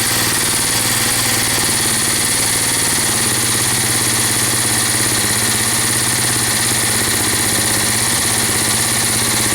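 Honda Rancher 350's single-cylinder four-stroke engine idling steadily on choke just after a cold first start following a rebuild. The valve train is audibly noisy.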